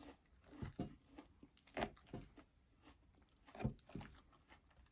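Someone chewing crunchy raw salad close to the microphone: a few short, soft crunches, spread out with quiet gaps between them.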